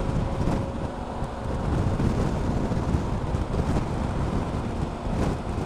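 Riding on an adventure motorcycle at steady speed: wind rushing over the microphone, with the engine and road noise running underneath.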